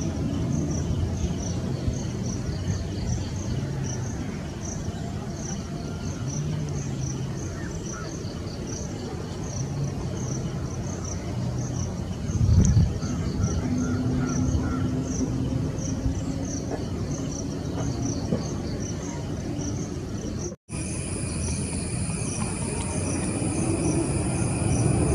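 Insects chirping in a regular rhythm over the low, distant rumble of a Boeing 737-800's jet engines as it taxis. After a sudden break near the end, a steady high-pitched jet whine and a rising engine rumble as the 737 rolls for takeoff.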